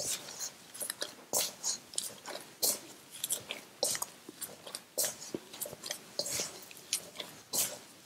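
Hands in thin plastic gloves kneading soft flour dough in a stainless steel bowl: irregular crackling and squishing as the gloves press and rub the dough, a few times a second.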